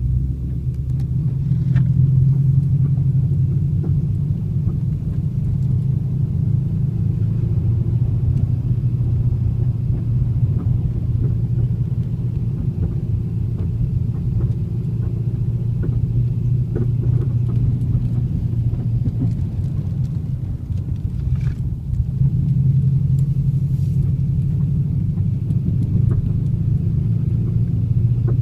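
2010 Chevrolet Camaro driving slowly, with a steady low rumble and scattered faint clunks.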